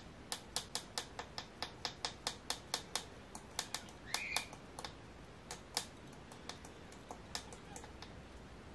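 Small metal perch jig lure tapping as it is jigged under the ice: a run of sharp clicks, about four a second at first, then sparser.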